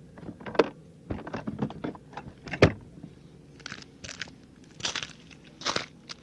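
Irregular handling noises: clicks, knocks and short scrapes of gear being moved about, the loudest knock a little over two and a half seconds in.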